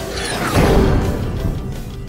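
Intro theme music playing under an animated logo, swelling louder about half a second in.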